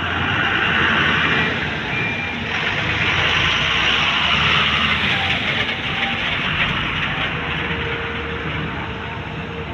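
Volvo EC210B hydraulic excavator working, its diesel engine and hydraulics running steadily. A hissing rush swells louder about half a second in and again from about two and a half to five seconds in.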